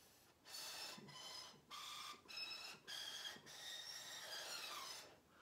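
A homemade drinking-straw panpipe blown one straw after another: about six faint, breathy, airy notes, each a different pitch, the last held longer. The straws are of different lengths, so each sounds its own note, the longer straws lower and the shorter ones higher.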